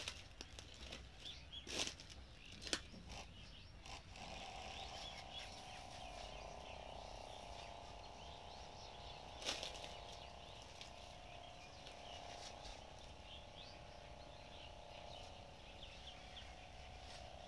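Small 12-volt sprayer motor running with a faint steady hum that starts about four seconds in, under the light hiss of the spray gun and a few sharp clicks.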